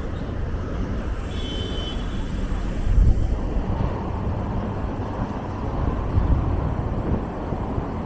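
City street traffic noise heard from a moving bicycle: steady road and engine noise from passing cars, swelling a little about three seconds in and again near six seconds. A short high tone sounds about a second and a half in.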